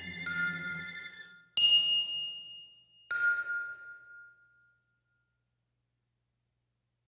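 Background music ending on three struck chime notes about a second and a half apart, each ringing and fading away, the last dying out about two-thirds of the way through.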